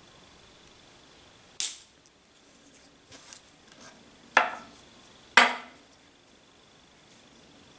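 Side-cutting pliers snipping off the ends of rawhide braiding lace flush with a finished braid: three sharp snips, one about a second and a half in and two more about a second apart near the middle, with faint handling clicks between.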